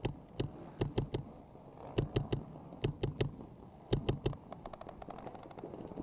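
Planet Eclipse Ego LV1 paintball marker firing in quick strings of two to four sharp shots. A faster run of fainter shots follows from about four and a half seconds in.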